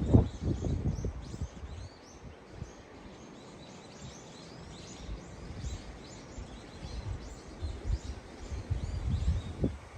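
Strong gusty wind buffeting the microphone in rumbling bursts, heaviest at the start and again in the last three seconds, with small birds chirping over it throughout.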